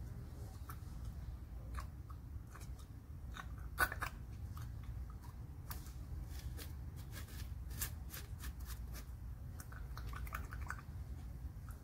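Scattered small clicks and scratchy handling noises, with one sharper click about four seconds in, over a steady low rumble.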